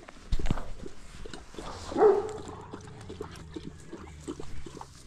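Dogs vocalising: a short loud cry about two seconds in, then a low drawn-out rumble like a growl, with a few thumps and scuffles around it.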